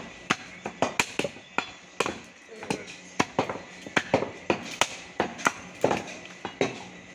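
A butcher's cleaver chopping raw beef on a wooden log chopping block: a run of sharp, irregular chopping knocks, about two a second.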